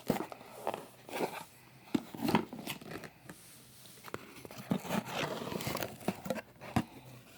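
Hands opening a cardboard box: irregular tearing, rustling and crinkling of cardboard and paper packaging, with scattered sharp clicks.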